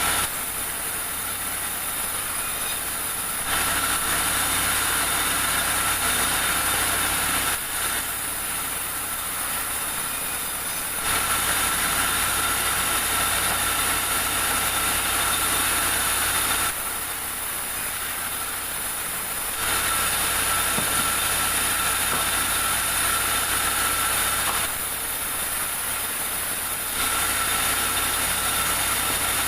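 Sawmill machinery running steadily, with a continuous mechanical hum and a steady high whine. The sound drops to a lower level and comes back abruptly four times, for about three seconds each time.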